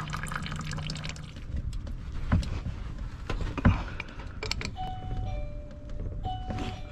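Water trickling from an opened pipe union into a plastic bucket, with a few sharp metal knocks as pipe wrenches are set on a brass hydronic valve body. Short, steady high tones come in the second half.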